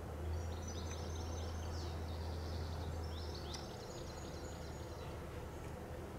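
Birds chirping and singing in quick, repeated high notes, over a steady low rumble that fades out after about three and a half seconds.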